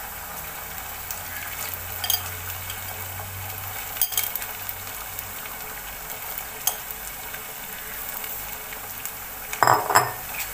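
Chicken livers and chopped onions sizzling in oil in a steel pot. A steel spoon clicks against the pot a few times, then scrapes and knocks louder near the end as it stirs.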